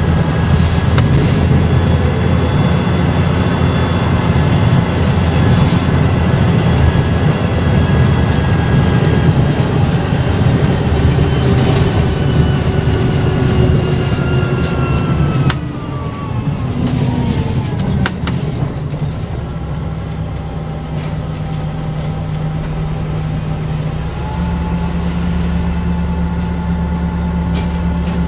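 Bus with a Volvo TD102KF diesel engine and Voith DIWA automatic gearbox running under way, the engine note and a higher whine held steady and then sagging. About halfway through, the sound drops and the whine glides steeply down as the bus slows. It settles to a lower, steady drone and picks up again near the end.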